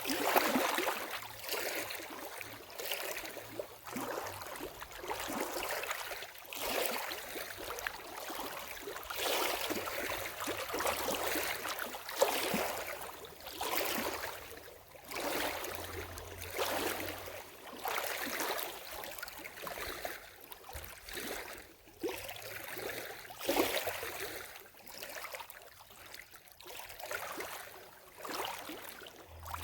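Small lake waves lapping and splashing at the water's edge, in irregular swells about every second or so.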